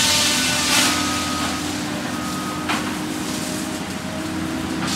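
A Cat 573C feller buncher's engine and hydraulics running steadily under load. Surges of hissing noise come near the start and again about a second in.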